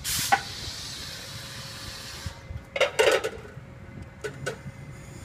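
A steady hiss for about two seconds, then a cluster of sharp clattering knocks and, a little later, two lighter clicks: dishes being handled at a soba stall's counter.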